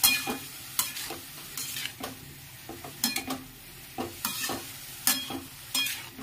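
Steel spatula scraping and knocking against a metal pan while stirring shredded cabbage and potatoes, two or three irregular strokes a second with a brief metallic ring. A faint sizzle of the vegetables frying in oil sits underneath.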